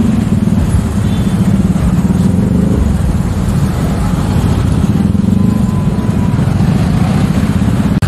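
Jammed traffic of motor scooters and cars crawling along: many small engines running together in a steady, low engine noise.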